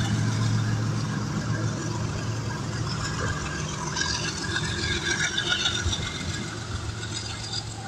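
Slow freight train of boxcars rolling past, with a steady low diesel locomotive hum that weakens after the first second as the engine moves away. The wagons' wheels rattle and screech throughout, loudest about four to five seconds in, and the overall sound slowly fades.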